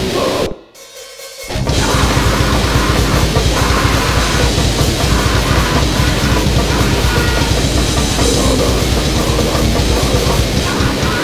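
Raw, loud grindcore/noisecore band music: distorted, noisy guitar and bass over fast drumming with crashing cymbals. It breaks off briefly, about half a second in, and crashes back in about a second later.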